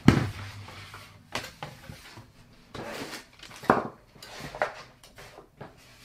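Boxed toys being slid and set down on a desk: a string of knocks and short scrapes, the loudest knock right at the start and others scattered through.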